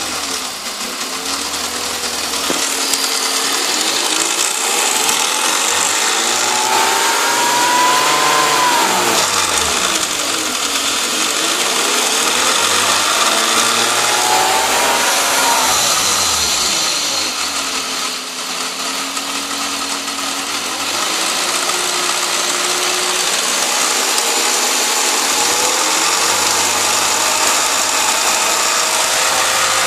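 Car engine revved up and down several times, its pitch rising and falling with each blip. The owner finds the revving brings out a weird ticking noise.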